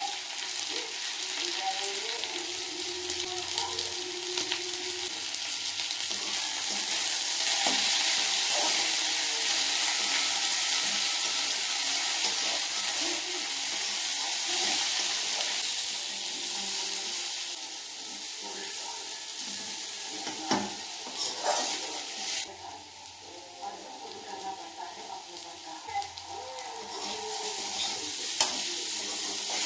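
Potato strips sizzling in hot oil in a steel kadai while being stirred, with a few clicks of the stirring utensil against the pan. The sizzle is strongest through the middle, drops off sharply about two-thirds of the way in, and picks up again near the end.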